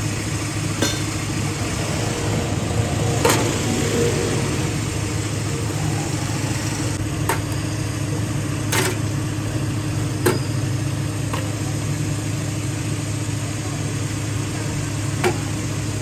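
An engine idling steadily, a low even hum, with several sharp clicks scattered through.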